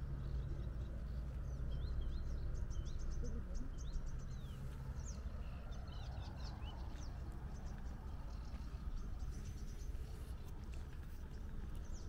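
Small birds chirping and twittering in short, quick notes, busiest in the first half, over a steady low rumble.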